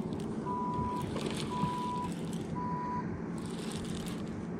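Electronic beeper sounding a steady high tone about once a second, each beep about half a second long, stopping about three seconds in, over a low steady hum.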